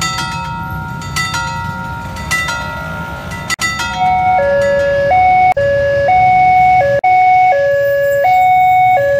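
Railroad crossing warning signal: a bell dinging about once a second, then from about four seconds in a louder electronic two-tone alarm alternating high and low, the warning that a train is approaching.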